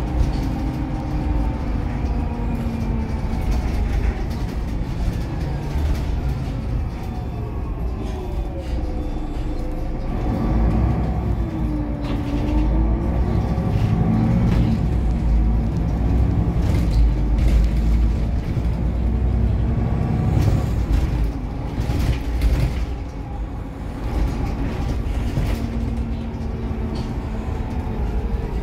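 Inside a moving city bus: engine and drivetrain rumble under a whine that falls as the bus slows, dips lowest about twelve seconds in, then rises again as it picks up speed. Occasional rattles and knocks come from the cabin fittings.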